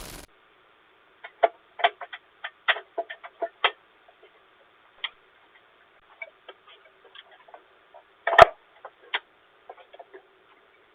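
Irregular small clicks and ticks, clustered in the first few seconds, with one louder knock a little past eight seconds, heard through a doorbell camera's thin-sounding microphone.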